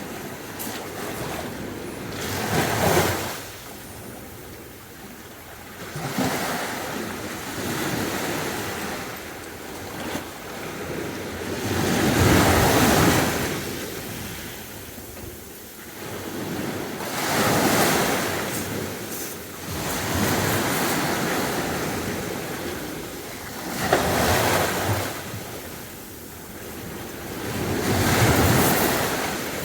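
Sea waves breaking on a beach, the surf swelling and falling away in a loud rush every four to six seconds.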